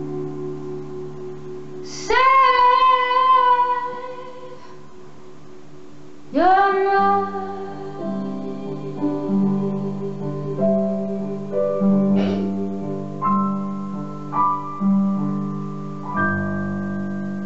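A woman singing live over electric keyboard chords. She holds two long notes with vibrato, the first about two seconds in and the second from about six seconds in, while the keyboard chords change underneath.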